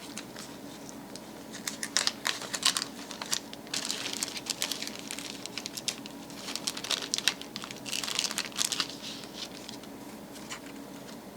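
Paper and plastic packaging being handled and crinkled, with irregular rustles and small clicks as items are pulled out of a small package.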